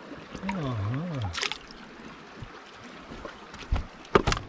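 Shallow seawater trickling and lapping around rocks in a tide pool. A man's short wordless hum rises and falls twice about a second in, and a few sharp knocks come near the end, the loudest of the sounds.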